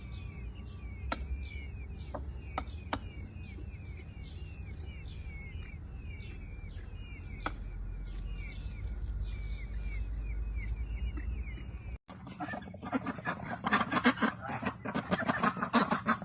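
Rapid, high, repeated bird chirps, about three a second, with a few sharp clicks. About twelve seconds in, a sudden cut leads to a flock of ducks quacking loudly and continuously.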